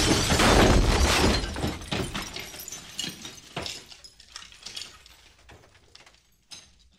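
The tail of a shattering crash: many scattered clinks and rattles that thin out and fade away over several seconds.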